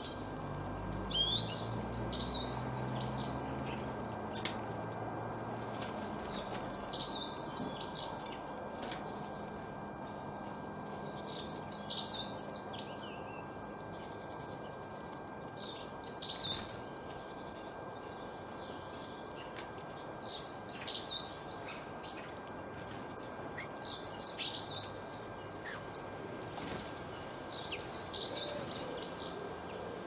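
A songbird singing short, high, twittering phrases of one to two seconds, repeated about every four seconds, over a faint steady hum. A low rumble fades out in the first few seconds.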